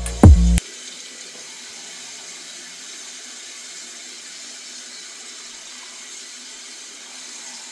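Music ends with a loud hit just after the start, then a steady rush of running water, like a tap running into a sink.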